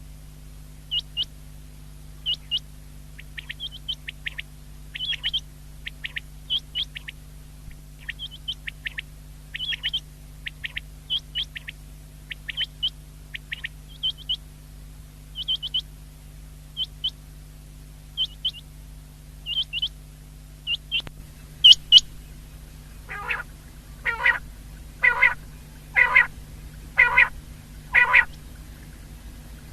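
Common quail calling: short, high notes in quick groups of two or three, repeated every second or so. About two-thirds of the way through come two sharp clicks, then a run of six louder, fuller calls about one a second, over a steady low hum.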